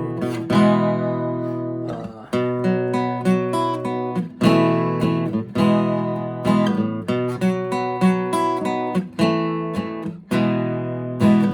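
Acoustic guitar played through the song's verse: chords struck and left to ring, with single picked notes between them. The chords come about every one to two seconds.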